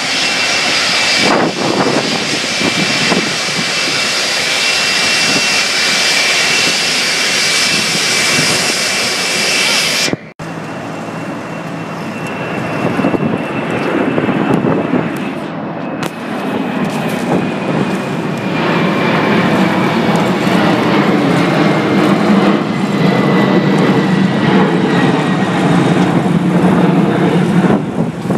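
Boeing 747's four jet engines running: first a steady high whine over a rumble as it taxis. After a sudden cut about ten seconds in, the jet climbs out overhead, its whine slowly falling in pitch while the low rumble grows louder.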